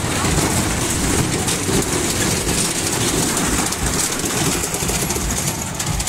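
A children's fairground train ride running round, heard from on board: a steady mechanical rumble and hiss, with wind buffeting the microphone as it moves.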